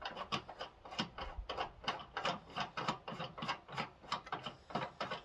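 A large hand knob being screwed into the side bearing of a Celestron StarSense Explorer 10-inch Dobsonian, giving a quick, irregular run of small clicks, about four or five a second, as it is turned.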